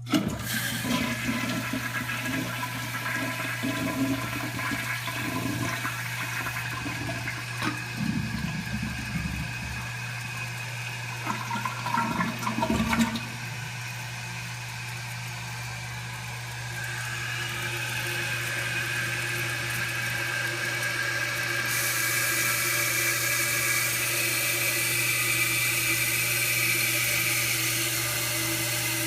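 A 1987 American Standard Cadet toilet flushing: the water rushes and churns into the bowl for about thirteen seconds and ends in a short gurgling surge. Then the tank refills with a steady hiss from the fill valve that grows louder and holds on.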